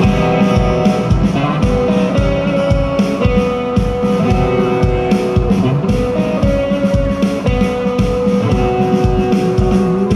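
A live band plays an instrumental passage with no singing: strummed acoustic guitar and electric guitar over a steady drum beat.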